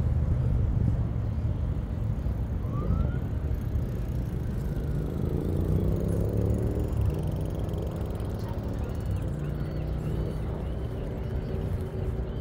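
Outdoor city ambience: a steady low rumble of road traffic, with a vehicle's engine drone passing through the middle. Near the end come a run of short, high-pitched chirps, about two a second.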